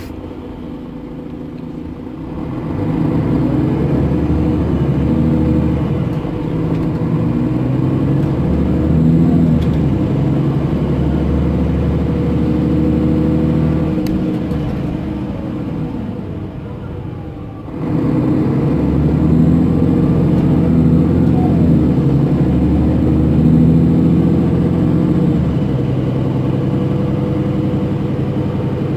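Mercedes OM457 hLA six-cylinder diesel of a Setra S417 UL bus heard from inside the passenger cabin, pulling under load with the revs climbing and stepping down as the automatic gearbox changes gear. The engine eases off briefly about two-thirds through, then pulls hard again.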